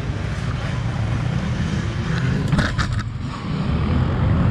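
Dirt bike engines running on the race course, heard as a steady low rumble, with a few quick clicks about two and a half seconds in.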